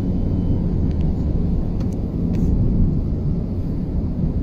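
Car driven at high speed, heard from inside the cabin: the engine and tyre and road noise blend into a steady low rumble.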